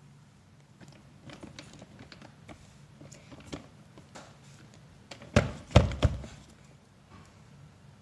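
Scattered light clicks and knocks, then about four loud thumps in quick succession about five and a half seconds in.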